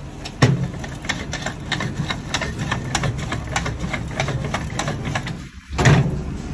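Wooden rolling pin worked back and forth over dough on a floured wooden board, making a quick irregular run of clicks and knocks, about three or four a second. A heavier thump comes about half a second in and another near the end, over a steady low kitchen hum.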